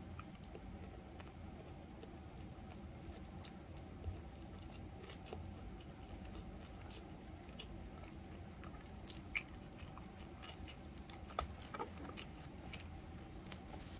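Close-miked chewing of a mouthful of kimbap (Korean seaweed rice roll), with faint scattered mouth clicks and smacks.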